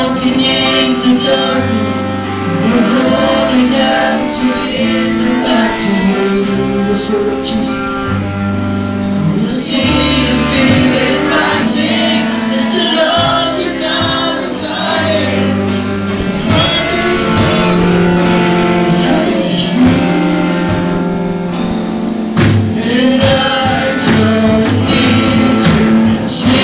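Live worship band playing and singing: a male lead vocalist and backing singers, a woman among them, over electric guitar, sustained low bass notes and drums with cymbals.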